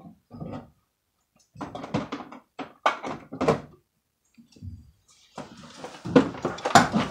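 Irregular knocks and scraping in short clusters, with brief quiet gaps between them, ending in a longer, busier stretch.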